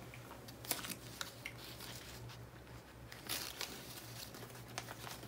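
Crinkling and rustling of a chocolate bar's wrapper as pieces of the bar are handled, in scattered short bursts of clicks, over a low steady hum.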